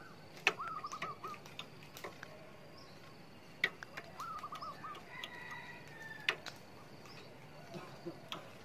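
Zebra dove (perkutut) calling faintly: two short, quick stuttering runs of cooing notes, one about half a second in and one about four seconds in. Scattered sharp clicks and taps run through it as a trapped dove flaps its wings against the trap net.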